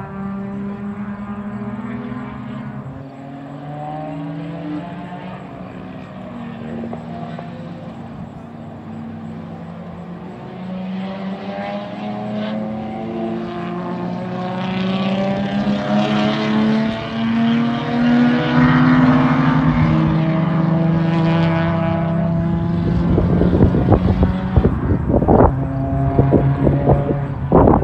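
Several cars' engines run hard as they lap the circuit, their pitch climbing through the gears and dropping at each shift, and they grow louder as cars come past about halfway through. In the last few seconds wind buffets the microphone in heavy gusts.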